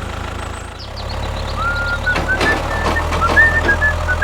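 Mini tractor's engine running with a steady low rumble. From about one and a half seconds in, a string of short high beeping tones and clicks plays over it.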